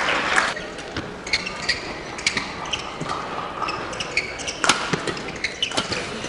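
Badminton doubles rally: rackets striking the shuttlecock in sharp clicks, mixed with short high squeaks of players' shoes on the court mat. The hardest hit comes about four and a half seconds in.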